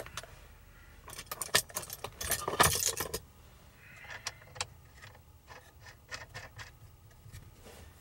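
Small metal parts and hand tools clinking and rattling: a busy clatter for a couple of seconds, then scattered light clicks.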